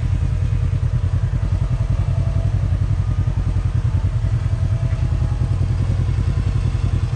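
Polaris RZR High Lifter 1000 side-by-side's twin-cylinder engine running steadily at low revs, a low, fast pulsing drone.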